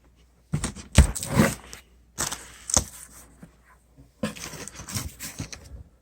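Packaging being handled and pulled out of a shipping box: scraping and rustling in three bouts, with sharp knocks.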